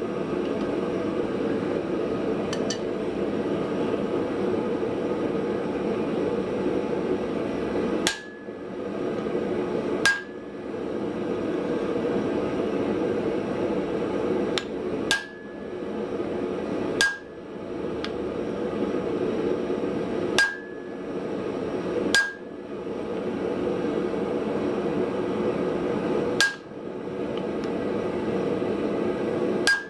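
Steady rushing noise of the forge, with single hammer blows on hot steel starting about eight seconds in: about nine sharp strikes spaced one to four seconds apart, each ringing briefly.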